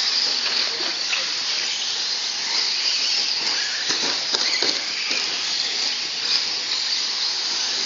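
Radio-controlled short-course trucks racing on a dirt track: a steady high hiss of their motors and tyres, with a few short knocks about four seconds in as trucks land and tumble.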